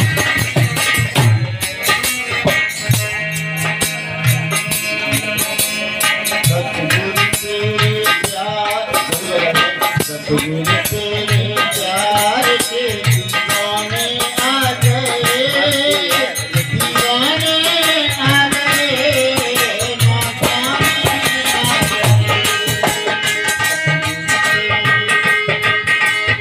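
Devotional folk music: a harmonium playing over a steady rattling hand-percussion beat and low drum strokes. A man sings through the middle of the passage, from about eight seconds in to about twenty seconds.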